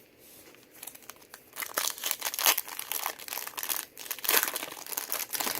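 A trading card pack's wrapper crinkling and being torn open by hand, with irregular crackles.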